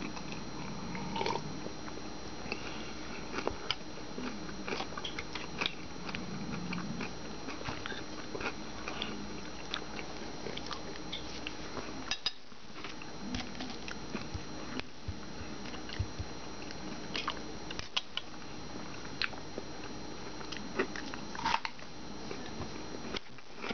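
A person chewing food at a meal, with small mouth clicks and smacks scattered throughout.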